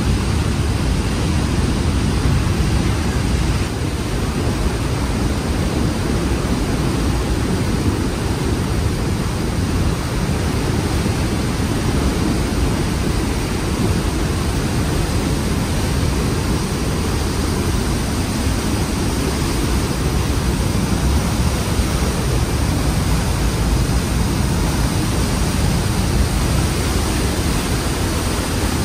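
Trümmelbach Falls' glacier-fed waterfall rushing through its rock gorge inside the mountain: a loud, steady roar of water.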